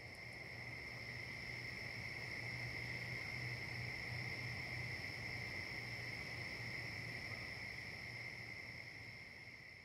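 Faint, steady high-pitched ringing at two pitches over a low hum, fading in at the start and fading out near the end.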